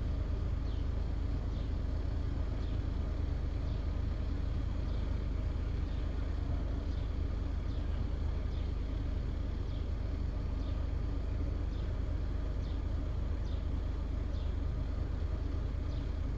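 Steady low rumble of an idling car engine heard from inside the car, with faint short high chirps recurring about once a second.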